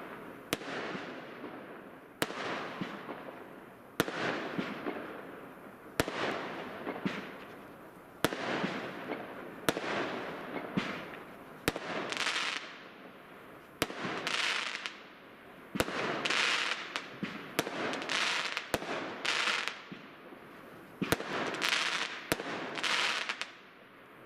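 Fireworks going off: a sharp bang about every one and a half to two seconds, each trailing into a hiss and crackle that fades before the next.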